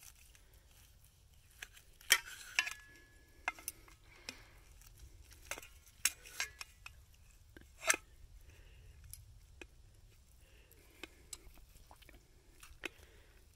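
Knife and fork clinking and scraping against a metal plate while slicing a cooked beef roast, in scattered sharp clicks. The loudest clink, about two seconds in, leaves a short metallic ring.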